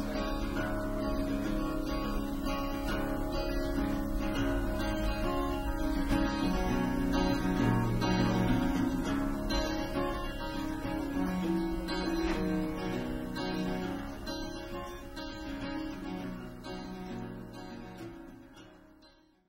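Strummed acoustic guitar music, fading out near the end.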